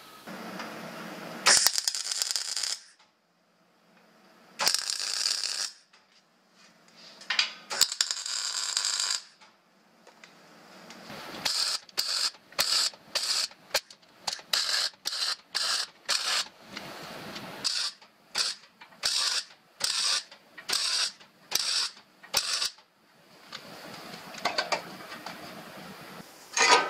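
Steel fabrication at the bench: clanks and scraping of sheet steel in a hand folding brake at first, then a long run of regular metallic hammer blows, about one and a half a second, over the steady hiss of a gas torch heating a bent steel bumper bracket in a vise.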